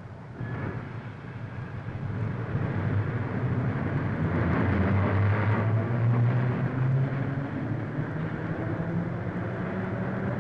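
Low street vehicle rumble on an old optical film soundtrack. It swells over the first few seconds, is loudest around the middle, then settles to a steady level.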